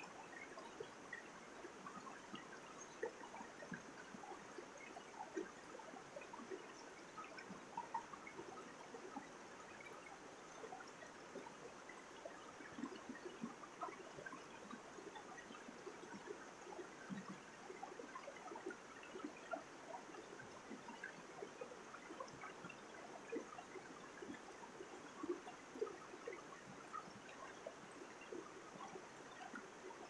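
Mountain stream running over rocks: a steady rush of water with many small splashes and gurgles.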